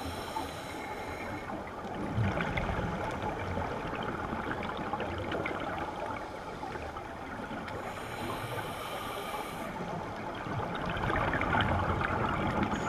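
Scuba diver breathing through a regulator underwater: a thin, high hiss on each inhale, then a longer, louder rush of exhaled bubbles gurgling out. The cycle happens twice.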